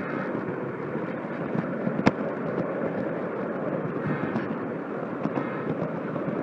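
HO scale model train running along its track, heard from on board: a steady rumble of wheels and motor with scattered light clicks, and one sharper click about two seconds in.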